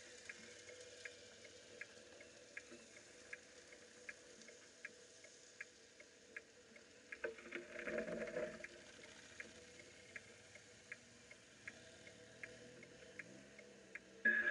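Faint sounds: light ticks about twice a second over a low steady hum, with a motorcycle engine swelling briefly as it passes about halfway through.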